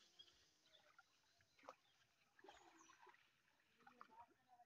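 Near silence: faint outdoor ambience with a few faint short chirps and a soft click about a second and a half in.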